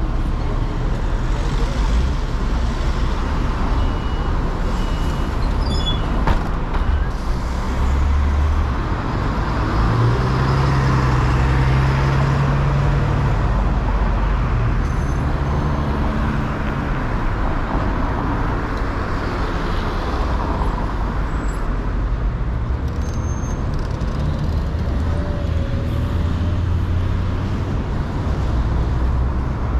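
Road traffic on a city street: vehicle engines running and tyres hissing past in a continuous wash. A deeper engine hum grows stronger for a few seconds about a third of the way in.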